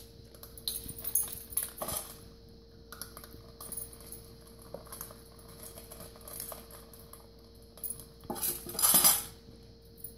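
Stainless-steel dog food bowls clanking and scraping on a tile floor as miniature pinschers tip and push them, with kibble scattering and the dogs eating in between. The loudest clatter comes about nine seconds in.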